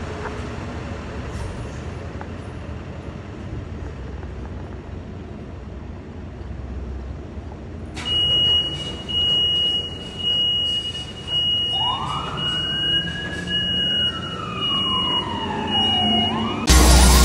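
A Freightliner M2 ambulance's diesel engine runs as the ambulance pulls out of the station bay. Partway through, a high electronic beep starts repeating about once a second. A few seconds later the ambulance's siren begins a slow wail, rising and then falling. A louder, different sound cuts in just at the end.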